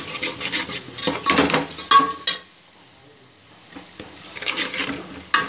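Metal spoon scraping and clinking against a steel pot while stirring a thick fried masala, in quick uneven strokes with a pause of about a second and a half in the middle.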